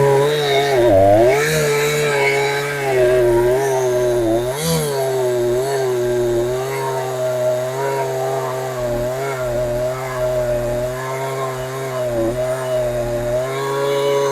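Husqvarna 372XP clone's two-stroke chainsaw engine, fitted with a genuine carburettor, running at high revs. Its pitch wavers and dips briefly twice, about a second in and near five seconds.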